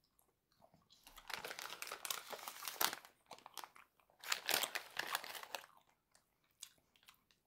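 Crinkling and crunching of a crisp packet being handled, in two bursts of about two seconds each.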